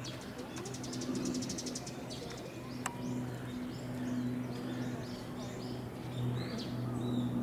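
Small birds chirping again and again in short calls, with a fast high trill near the start, over a steady low hum. A single sharp click comes near the middle.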